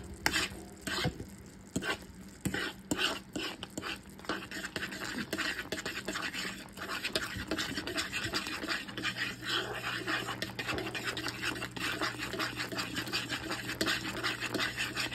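A utensil stirring thick, simmering gravy in a metal pot, with quick repeated scraping and clinking strokes against the pan. A low steady hum comes in about two-thirds of the way through.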